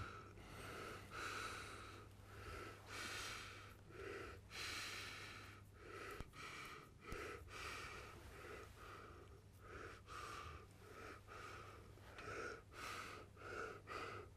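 Quiet, close-miked breathing of an elderly man: soft breaths in and out, repeating every half second to a second, over a faint steady low hum.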